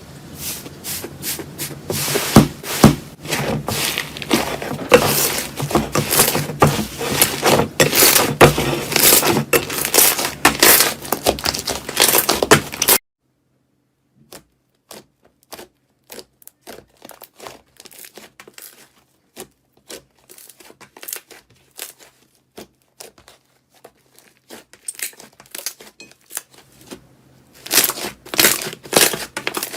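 Slime being squeezed and pressed by hand, making dense crackling and popping. About 13 seconds in it cuts to quieter, sparser pops, which grow thicker again near the end.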